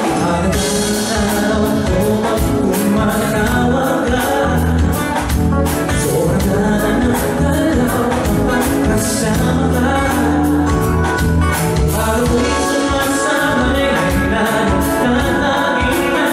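Male vocalist singing a slow pop ballad into a microphone, backed by a live band with keyboards and drums keeping a steady beat, heard through the concert PA.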